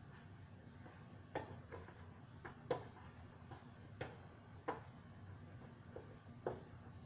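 A cardboard retail box being handled and opened by hand: about a dozen light clicks and taps of its flaps and cardboard, irregularly spaced.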